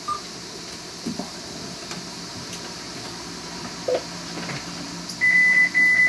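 Marine VHF radio giving two high electronic beeps in quick succession, about five seconds in, lasting about a second in all.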